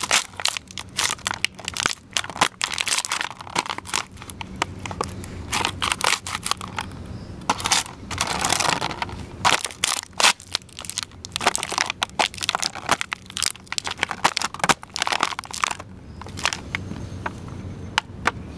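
Leather chukka boots stomping on and crushing empty black plastic shrimp containers on concrete: a dense run of sharp cracks and crackles as the plastic splits and flattens. The cracks thin out over the last few seconds.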